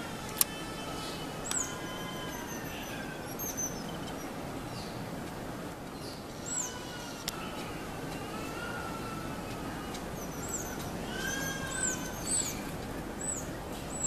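Water trickling steadily over the rock of a birdbath, with short high-pitched bird chirps several times and long whistled tones that slowly rise and fall.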